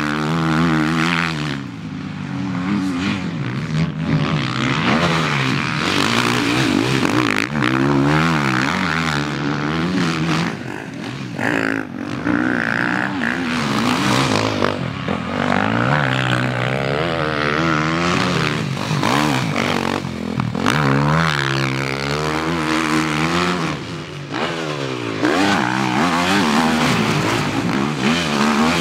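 Motocross bike engines revving hard through corners and jumps, the pitch climbing and dropping back again and again as the riders work the throttle.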